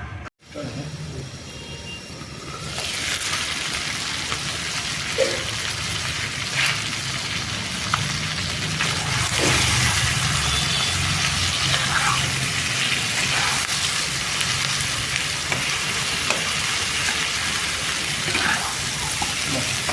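Chicken frying in a pan for bhuna, with a steady sizzle that comes up loud about three seconds in. Scattered short scrapes and clicks come from stirring.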